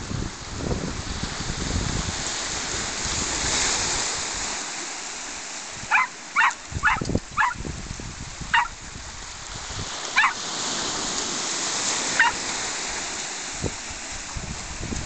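A small terrier yapping: four quick high yaps about six seconds in, then three single yaps a second or two apart. Waves wash steadily over shingle throughout.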